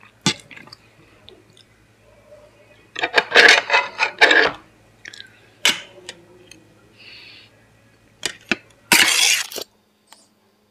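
A metal spoon clinking and scraping against steel plates as food is served: single sharp clinks, a dense clattering cluster about three seconds in, and a louder scrape near the end.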